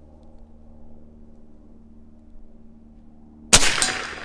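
A single shot from an Evanix Rex Ibex .457 big-bore PCP air rifle about three and a half seconds in: a sudden loud crack that dies away over the next second. A fainter second crack comes about a third of a second after it, the kind of delay that fits the slug striking the half-inch steel plate target.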